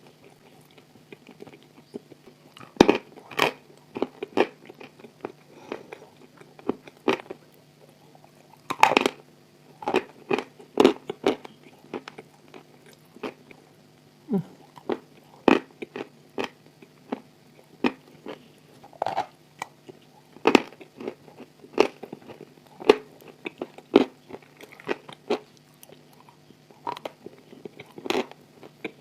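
Close-miked crunching and chewing of a hard, chalky material, clay or chalk: irregular sharp crunches, several a second at times, with quieter gaps between bites. A faint steady hum lies underneath.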